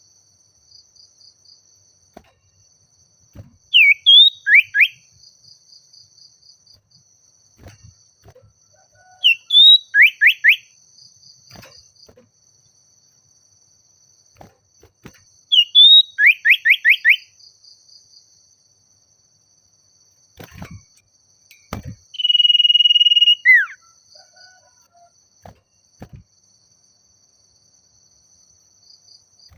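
Common iora singing in repeated phrases, each a short rising whistle followed by a fast run of four or five falling notes. Near the end comes one long steady whistle that ends in a falling slur. A faint steady high insect buzz runs underneath.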